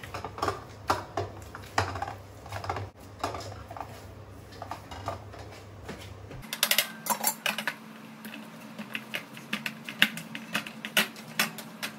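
Wheat-flour dough being kneaded by hand in a steel plate: irregular light taps, clicks and soft slaps of hands and dough against the steel, thicker in the second half.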